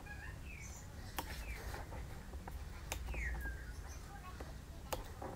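Small spring-loaded snips clicking shut a few times, about two seconds apart, as they cut notches into vinyl upholstery. Birds chirp in the background, with one falling call about halfway through.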